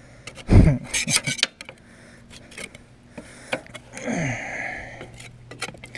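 GrassBuster deck scraper scraping built-up grass off the underside of a Toro mower deck in short uneven strokes, with clicks and knocks. A loud low thud comes about half a second in.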